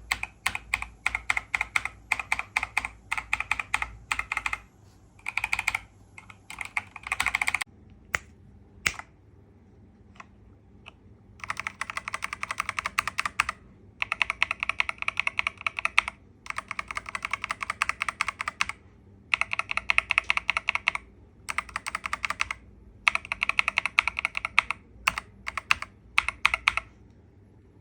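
Typing on a Skyroong GK87 Pro mechanical keyboard with linear switches: rapid runs of key clicks a few seconds long, separated by short pauses. About a third of the way through there is a longer lull with only a few single keystrokes.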